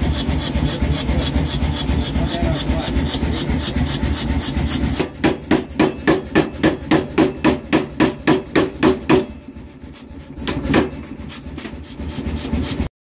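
Blacksmith's power hammer: a steady loud mechanical running noise, then from about five seconds in a run of quick, evenly spaced heavy blows, about four a second for some four seconds, as it forges red-hot iron. One more single blow comes about a second and a half later.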